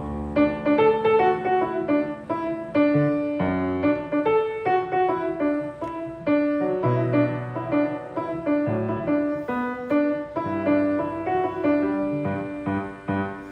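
Piano playing an instrumental passage between sung verses: a steady run of notes and chords with no voice.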